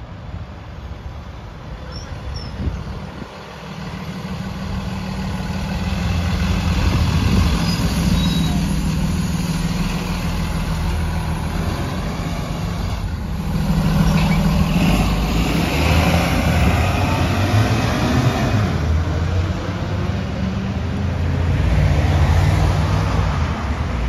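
Diesel engine of a 2020 Blue Bird Vision school bus, a 6.7-litre Cummins, pulling away and driving close past, its note swelling in several surges as it accelerates and loudest around the middle as it goes by.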